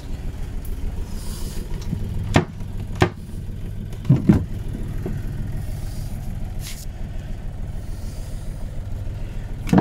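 Boat's motor idling steadily, a low pulsing rumble heard inside the cabin. A few sharp knocks come about two, three and four seconds in and again at the end as cabin fittings are handled.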